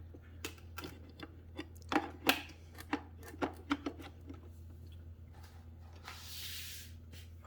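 Hands handling exercise-bike parts and cables: a dozen or so irregular small clicks and taps over the first four seconds, then a brief rustling hiss about six seconds in. A steady low hum runs underneath.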